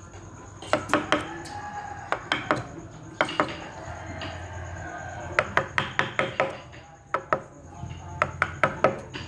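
A carving chisel being tapped into wood with a mallet: sharp knocks, some single and some in quick runs of about three a second.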